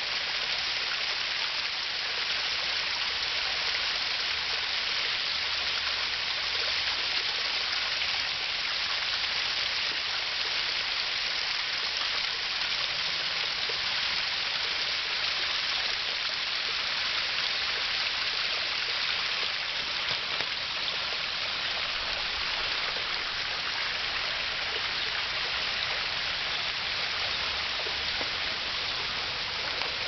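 Small waterfall trickling and splashing down a rocky face into a shallow stream: a steady, even rush of running water.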